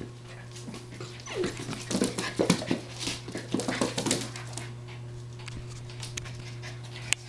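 Puppies' claws clicking and scrabbling on a hardwood floor in a busy flurry through the middle, with a few short whimpers, over a steady low hum.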